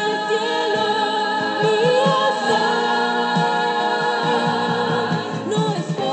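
Music: a Spanish-language Christian worship song sung by a choir, several voices singing together in held and wavering notes.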